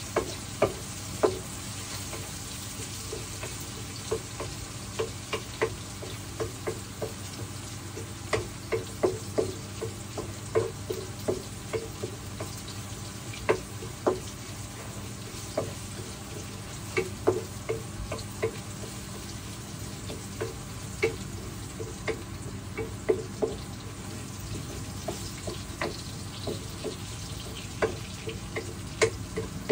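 Chopped garlic, ginger and bay leaves sizzling steadily in hot olive oil in a frying pan, with a wooden spatula knocking and scraping against the pan at irregular moments as they are stirred.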